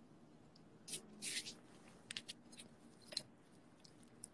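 Faint handling noise of a phone being turned around in the hand: a couple of soft rustles about a second in, then a few small clicks and taps, over quiet room tone.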